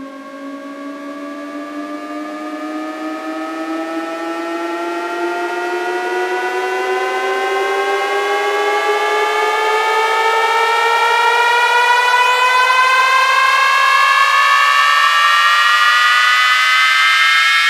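Siren-like rising tone in a DJ sound-check track: a pitched tone with overtones glides slowly upward while a second tone rises faster beside it, the whole sound growing steadily louder as a build-up.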